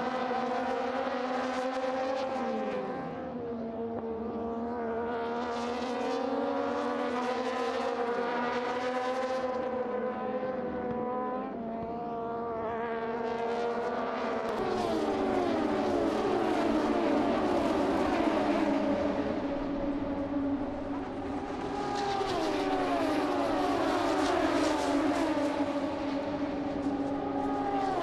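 Moto2 race bikes' Triumph 765 cc three-cylinder engines running hard at high revs. Their pitch slides down as bikes go by, and from about halfway through several bikes overlap, passing one after another.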